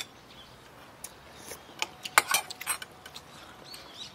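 Eating utensils, a metal spoon and chopsticks, clicking and clinking against bowls and seafood shells: one sharp click at the start, then a quick cluster of several about two seconds in.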